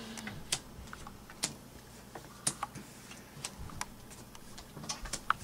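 Plastic poker chips and playing cards handled on a wooden tabletop: scattered sharp clicks and taps at irregular intervals.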